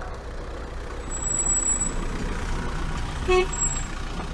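Steady low engine and road rumble of a vehicle driving, with one brief pitched tone about three seconds in.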